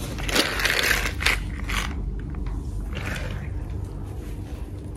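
Small toy trucks being pushed and set down on a hard floor: several short plastic scrapes and clacks in the first two seconds, and another about three seconds in.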